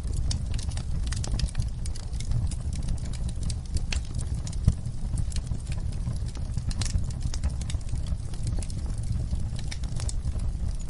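Wood fire burning in a fireplace: a steady low rumble of flame with irregular sharp crackles and pops, one louder pop near the middle.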